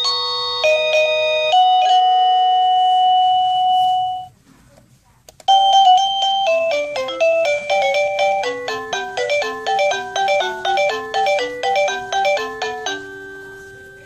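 SadoTech wireless doorbell receiver playing its electronic chime tunes. One melody ends on a held note that fades about four seconds in. After a short pause, chime number 36 starts: a fast tune of many short notes that runs about seven seconds and ends on a fading tone.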